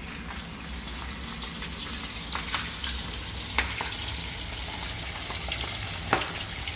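Breaded whole mangrove snapper going into oil heated to just over 350 °F in a stainless frying pan: the oil sizzles steadily, with a few sharp pops and spatters.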